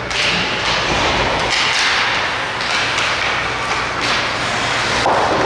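Sounds of ice hockey play in a rink: several hissing scrapes of skates on the ice, each starting suddenly and lasting up to about a second, with a few sharp knocks between them.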